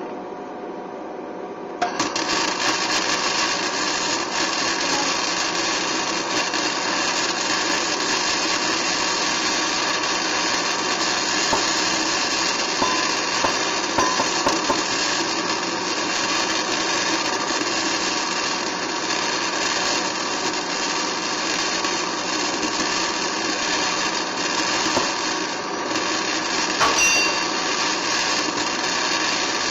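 A handheld power tool starts abruptly about two seconds in and runs steadily against steel, working at a rivet in a truck frame.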